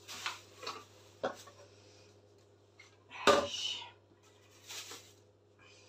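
Kitchen handling sounds: plastic bag crinkling and a few light knocks in the first second or so, then a sharp wooden clatter about three seconds in as a wooden cutting board is put down on the worktop. A steady low hum sits underneath.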